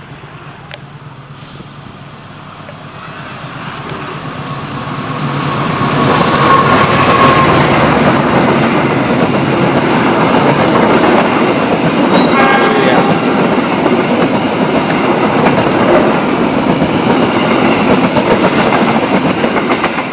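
Diesel locomotive hauling a passenger train, growing louder as it approaches. It then passes close by, its coaches making a steady rumble and clatter of wheels on the rails.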